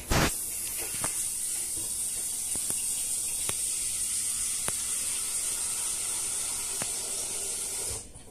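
A steady high hiss that starts with a click and cuts off near the end, with a few faint ticks scattered through it.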